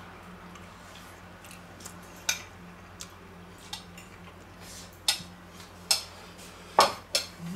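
A metal fork clinking against a ceramic plate: about half a dozen short, sharp clinks, the loudest near the end, over a steady low hum.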